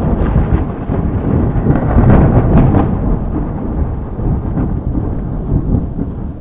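Thunder rumbling in a rainstorm: a loud, low, rolling rumble with faint crackles, slowly dying away through the second half.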